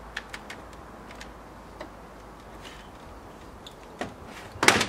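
Plastic retaining clips of a Mercedes Vito's front grille clicking as the grille is worked loose by hand: scattered small clicks, then a louder cluster of snaps and knocks near the end.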